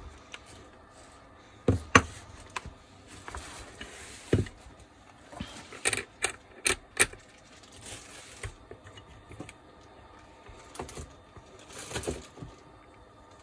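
Plastic housing and small metal parts of a Bosch GWB12V-10 cordless angle drill being handled while it is put back together: scattered clicks and knocks, with a quick run of them about six seconds in, and a few short rubbing sounds.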